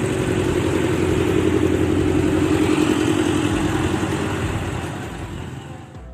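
Backhoe loader's diesel engine running as the machine drives past, loudest in the middle and fading as it moves away near the end.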